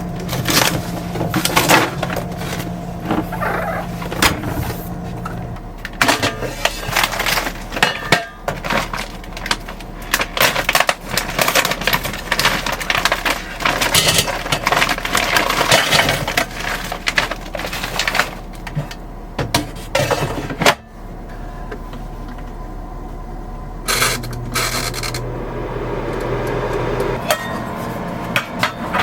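Clinks and knocks of small hard objects such as dishes being handled and set down, busiest in the middle, over a steady low hum.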